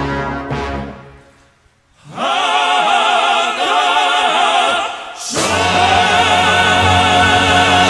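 Live classical-crossover vocal music in operatic style: an instrumental chord dies away, then voices come in singing with wide vibrato about two seconds in. After a brief break the sound swells into a fuller held chord with accompaniment.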